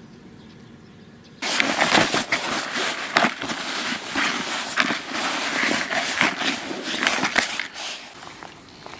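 A hand stirring and crumbling damp, dark groundbait in a plastic bucket: a gritty rustling and crunching with many small clicks. It starts abruptly about a second and a half in and dies away near the end, after faint outdoor background.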